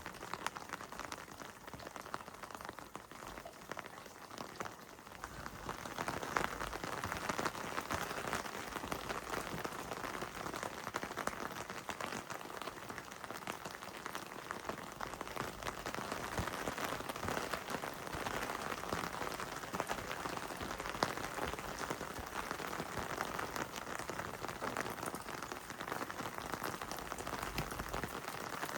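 Heavy rain falling, a dense patter of drops that grows louder about six seconds in.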